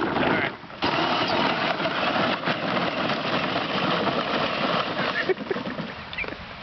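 Power Wheels Jeep running on a 24-volt battery upgrade: its electric drive motors and plastic gearboxes whine steadily as the plastic wheels roll over the ground. The sound cuts out briefly just under a second in, as if the pedal was let off, then runs on until it fades about five seconds in.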